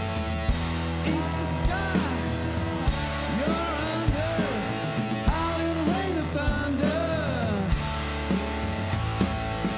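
Blues-rock band playing live: electric guitars, bass and drum kit, with a melodic line bending up and down in pitch over a steady low bass and regular drum hits.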